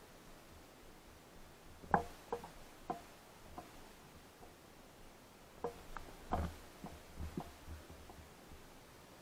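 Scattered faint knocks and clicks, about ten short taps spread over several seconds, over a quiet background.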